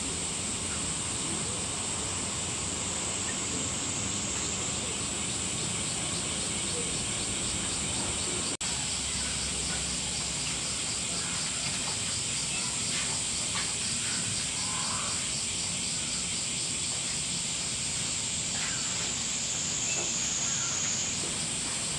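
A steady high-pitched chorus of cicadas, with a faster pulsing cicada call joining about ten seconds in.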